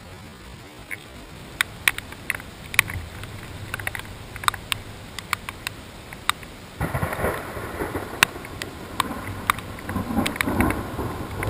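Raindrops striking the GoPro's waterproof housing in irregular sharp ticks. A louder rumbling wash joins about seven seconds in.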